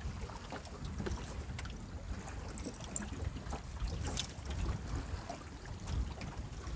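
Water lapping against a small aluminium boat's hull, with a low wind rumble on the microphone and scattered light clicks and knocks. About four seconds in there is a brief swish as a fishing rod is cast.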